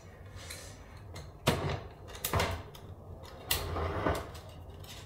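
Plastic knocks and scraping as a filament spool is handled and set into the open bay of a Bambu Lab AMS filament unit: a sharp knock about a second and a half in, another a second later, and a longer rough scrape around three and a half seconds.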